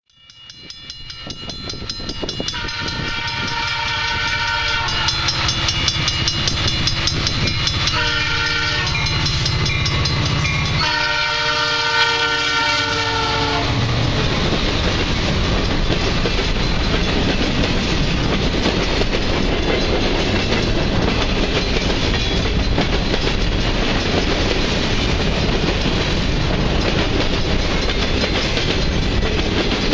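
A SOO Line EMD SD60 diesel locomotive sounds its horn in three long blasts as it approaches, then the locomotive and its grain train rumble past steadily, wheels clicking over the rail joints, pulling over the crest of a grade.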